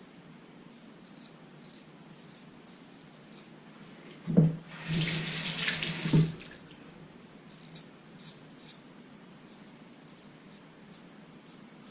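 A bathroom sink tap turned on with a knock about four seconds in, water running for about two seconds and then shut off. Before and after it come short, high scraping strokes, two or three a second.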